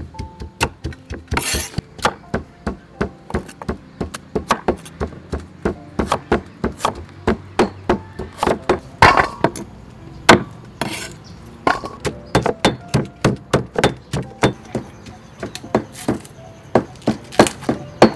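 Cleaver chopping peeled bamboo shoot on a wooden cutting board: a quick run of sharp knocks, about three a second.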